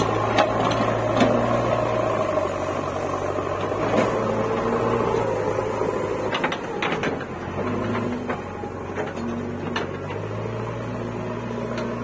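JCB 3DX backhoe loader's diesel engine running steadily, with scattered sharp metallic clanks and knocks from the machine.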